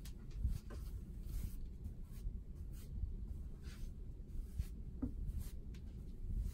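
Wide flat brush sweeping acrylic varnish across a painted board: a series of soft, irregular swishes, with a small tap about five seconds in.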